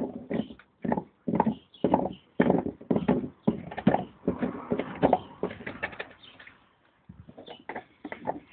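A dog chewing and gnawing a bone, crunching about twice a second. The chewing thins out about six seconds in, then comes back as quicker, lighter gnawing near the end.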